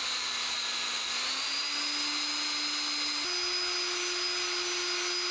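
Cordless drill running steadily, spinning a saw-handle nut against wet 1200-grit sandpaper held in the hand to polish it. The motor whine steps up in pitch twice, about a second and a half in and again past three seconds.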